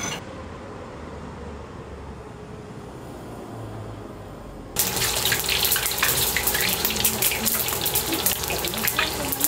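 Quiet street ambience with a faint low rumble, then from about halfway a sudden loud, dense sizzling crackle of meat deep-frying in a wok of hot oil.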